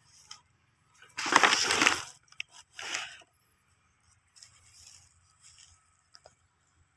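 Dry bamboo sheath crackling and crinkling as it is handled and laid onto leafy brush: a loud crinkling burst about a second in, a shorter one near three seconds, then softer rustles and a single click near the end.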